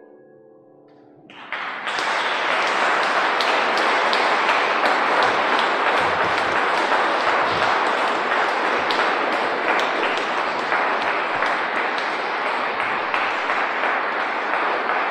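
Audience applause: after a brief hush, clapping breaks out about a second and a half in and keeps going steadily.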